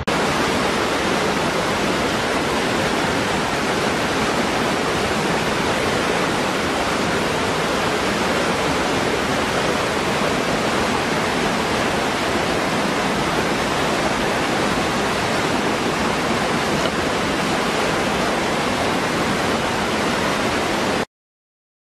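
Small waterfall pouring over rocks into a pool: a steady, even rush of falling and splashing water. It cuts off suddenly about a second before the end.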